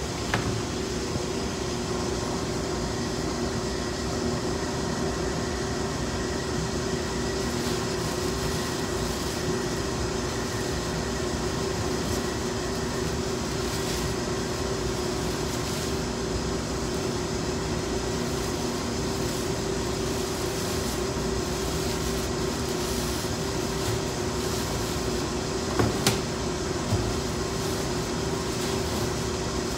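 Steady hum of HVAC equipment running, with a few held tones over an even rush of air. A couple of short knocks sound near the end.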